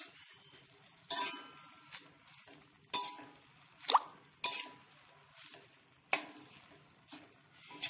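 Metal spatula knocking and scraping against a metal wok as chopped greens and cabbage are stirred, with sharp clinks roughly once a second.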